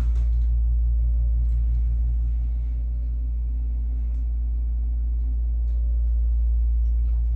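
Steady low hum and rumble of a hotel room's air-conditioning unit running, with a faint even pulsing in the hum.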